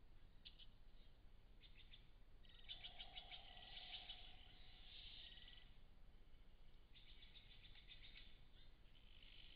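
A bird, which the uploader takes for a sapsucker, giving faint bursts of rapid, evenly spaced sharp high notes, the longest runs about three seconds and eight seconds in, with harsher hissy calls between them.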